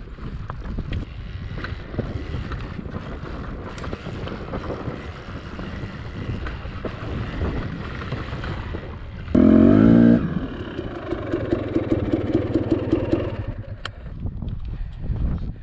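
Enduro dirt bike engine running at low speed, with a short, loud rising rev about nine seconds in, followed by a few seconds of steady pulsing engine note.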